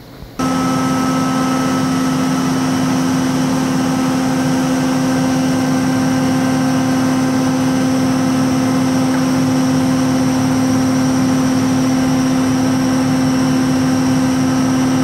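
2007 Doosan DMV4020 vertical machining center starting abruptly about half a second in, then running with a loud, steady machine whine made of several fixed tones over a hiss.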